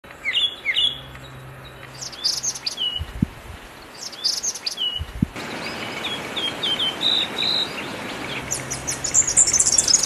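Small songbirds calling and singing: short falling chirps at first, then a string of brief whistled notes, and from about eight and a half seconds a high, fast trill that grows louder.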